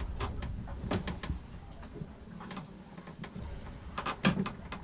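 Control lines and blocks of a Cape Horn servo-pendulum self-steering gear working under the deck of a sailboat, giving irregular clicks and creaks over a low steady hum.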